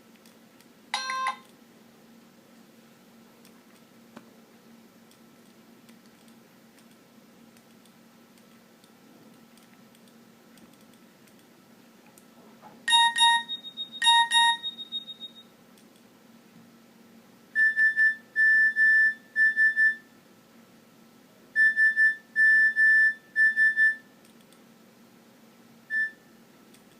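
Short electronic alert tones from a Nokia 6230i mobile phone, played one after another with pauses between them. A brief tone about a second in, then two loud beeps near the middle, the second ringing on, then two identical runs of three steady high beeps and one last short beep near the end.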